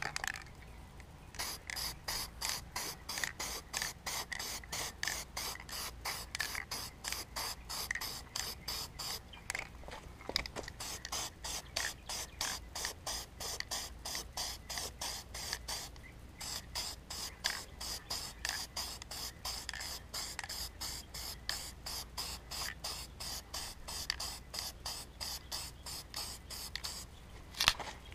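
Aerosol spray paint can spraying in short, rapid passes, about three hisses a second, with a few brief pauses.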